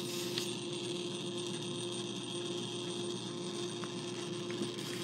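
Edison Model D phonograph spring motor running, freshly cleaned and greased: a steady whir of the spinning governor and gear train, carrying one steady hum-like tone, with a few faint ticks.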